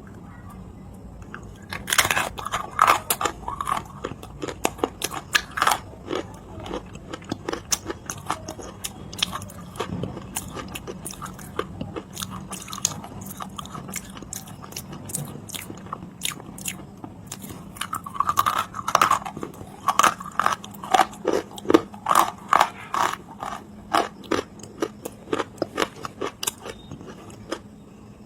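Dry clay being bitten and chewed close to the microphone: rapid crunching and crackling, in two heavier runs of bites near the start and again past the middle, with a faint steady hum underneath.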